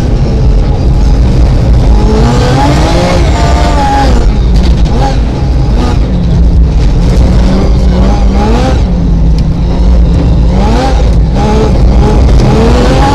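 Rally car engine heard from inside the cabin, pulled hard and revving up and dropping back repeatedly through gear changes, over heavy road noise.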